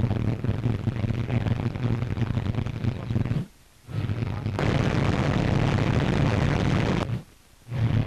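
Boeing Stratocruiser's four piston radial engines running, a steady rushing drone with a strong low hum. The sound drops out abruptly twice for about half a second, and the drone turns harsher after the first gap.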